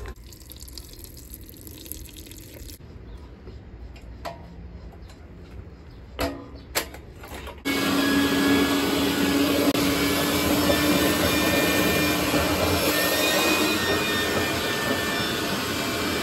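Wet/dry shop vacuum switching on about halfway through and running steadily with a constant hum, its hose sucking up standing water from the floor at the base of an electric water heater. Before it starts there are only faint handling sounds and a couple of short knocks.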